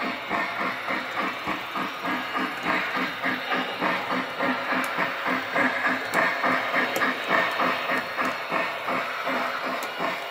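Lionel LionChief Plus 2.0 O gauge steam locomotive's onboard sound system chuffing steadily, about three chuffs a second, as the model runs in reverse, with a few sharp clicks along the way.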